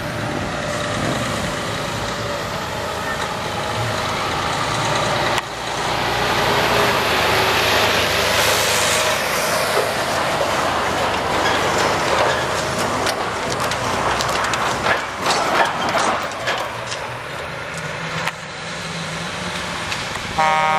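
Heavy truck with a drawbar trailer moving past at close range, its diesel engine running under loud road noise, with an abrupt cut about five seconds in. A horn starts to blare right at the end.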